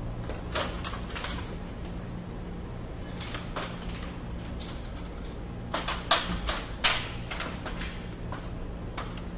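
Metal clanks and knocks from an aluminium stepladder being climbed down and then picked up and set down in a new spot. The two sharpest knocks come about six and seven seconds in, over a steady low hum.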